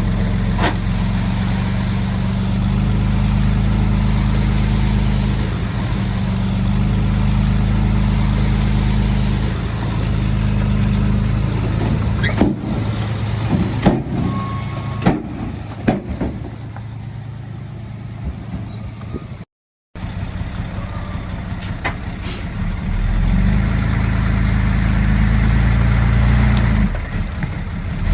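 Heavy diesel earthmoving machinery running steadily, with a string of sharp knocks and clanks about halfway through. The sound cuts out for a moment, then the engine comes back louder.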